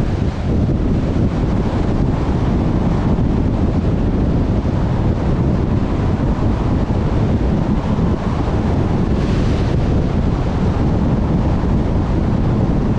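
Steady road and wind noise of a moving car, a dense low rumble with no let-up, with a brief higher hiss about nine seconds in.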